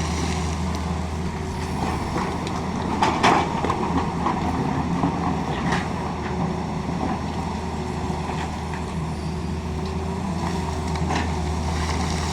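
Tata Hitachi excavator's diesel engine running steadily, with a few short sharp knocks about three seconds in, near six seconds and again near eleven seconds.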